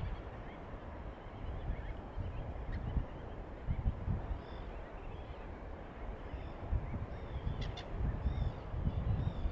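Short, repeated bird calls, more of them from about halfway on, over a low rumbling background noise.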